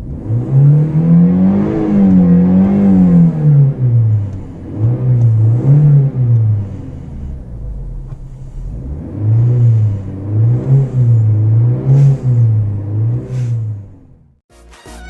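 Renault Mégane 2 1.6 four-cylinder petrol engine being revved: one long rev near the start, then runs of quick blips that rise and fall, with a short lull in the middle. The revving stops shortly before the end.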